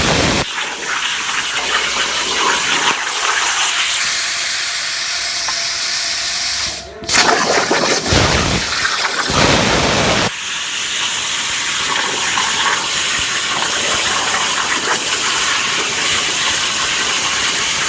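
CNC metal-cutting machine cutting with a loud, steady hiss. It stops for a moment about seven seconds in, restarts with a deeper rush for a few seconds, then settles back into the steady hiss.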